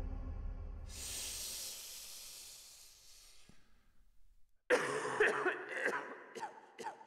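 A long hissing breath in the style of Darth Vader's respirator, starting about a second in and fading away over about two seconds. Near the end a man's voice breaks in with short, sharp, cough-like sounds.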